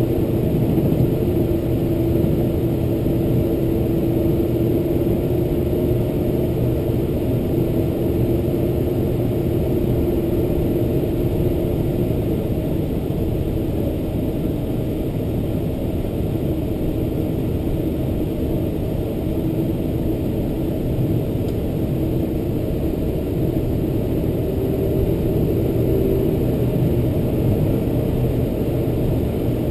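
Boeing 747-400's General Electric CF6-80C2 turbofan engines at taxi power, heard from inside the cabin: a steady low drone with a humming tone that weakens about halfway through.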